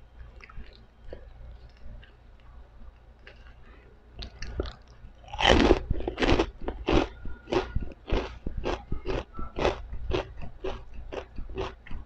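Crisp fried pork rinds (chicharon) being eaten close to the microphone. There are soft mouth sounds at first, then a loud crunching bite about five seconds in, followed by steady crunchy chewing at about three chews a second.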